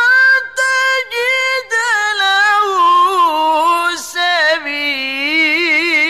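A man's high, melismatic Quran recitation (tilawah) sung solo in long phrases: the voice holds a high note, breaks off briefly several times in the first two seconds, then steps down in pitch with rapid trilled ornaments toward the end.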